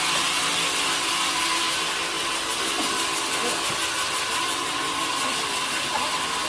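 Sawmill machinery running steadily, with a constant high whine over a mechanical hum.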